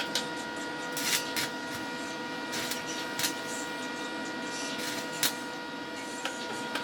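Electric arc welding on a steel shock-absorber strut body, crackling and sputtering over a steady electrical hum, with several sharp irregular pops. The drilled oil-filler hole in the strut is being welded shut.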